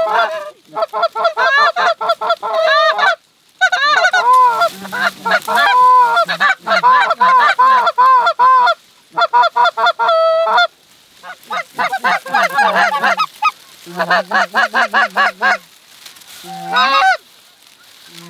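Goose calling: loud, rapid runs of honks and clucks in bursts, with short pauses between, as geese are worked in over a decoy spread.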